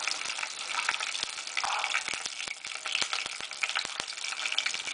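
Tempering spices and curry leaves sizzling in hot oil, with a steady hiss and many sharp crackling pops as the seeds splutter.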